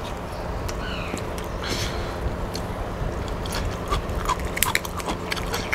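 Cooked rock lobster shell being cracked and pulled apart by hand, giving scattered small snaps and clicks, with some chewing.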